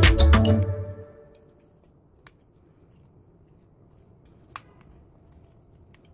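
Background music fades out in the first second. Then, in faint room tone, metal kitchen tongs click twice, lightly and then more sharply, as they turn chicken thighs in a ceramic baking dish.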